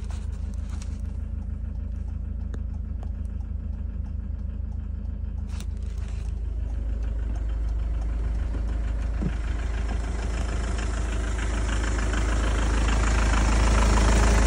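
Iveco Irisbus Way 50C18 minibus's 3.0-litre four-cylinder turbodiesel idling steadily with an even diesel clatter, growing louder toward the end. A short click about five and a half seconds in.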